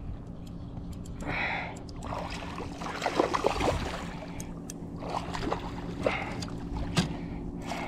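Water splashing in short bursts as a hooked red drum thrashes at the surface beside a kayak, loudest about three seconds in, over a steady low hum.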